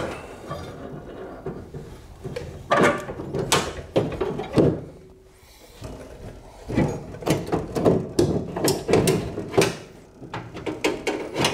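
Door latch and lock assembly, with its metal linkage rods, being pushed into the cavity of a steel truck door: a run of short clicks, knocks and rattles, with a brief lull in the middle.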